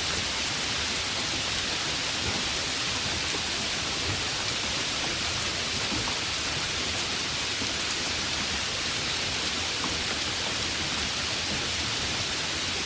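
Heavy rain falling steadily, an even hiss of drops with faint patters on surfaces.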